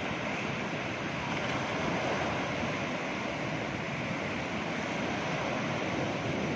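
Large ocean waves breaking and washing up the beach in a steady rush of surf, with wind on the microphone.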